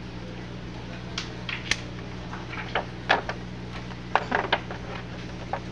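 Clear plastic safety window film on a car door window being handled and lifted by hand: scattered clicks and crackles of the film, thickest about three to four and a half seconds in, over a steady low hum.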